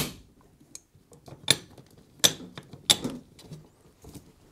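Fishing umbrella's pole and tilt fitting being adjusted in its clamp on a seatbox: a series of sharp clicks and clinks, spaced irregularly, with the loudest a second and a half, two and a quarter, and three seconds in.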